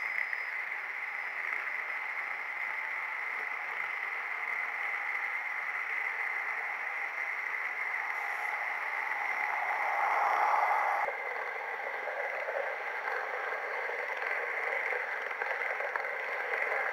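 Running noise of an H0-scale model train heard from a camera riding on the track: a steady whirring of small wheels on the rails with a steady whine over it. It swells about ten seconds in and drops abruptly about a second later.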